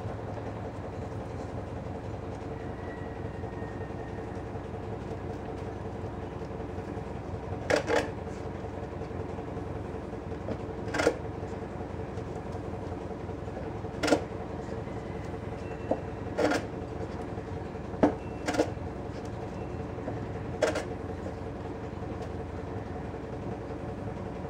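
Sandpaper strip drawn through a guitar's set-neck joint to fit the neck heel to the body pocket. It rasps in short single swipes, about seven of them a couple of seconds apart, beginning about eight seconds in. A steady hum from a pool cleaner runs underneath.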